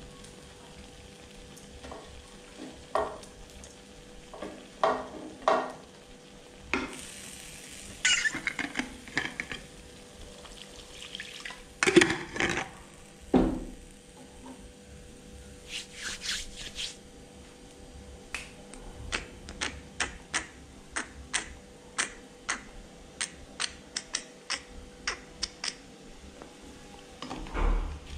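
Kitchen utensils knocking and scraping against a wok during stir-frying. There is a short hiss about seven seconds in and a loud clatter around twelve seconds, then a run of light, sharp knocks about two a second through the second half.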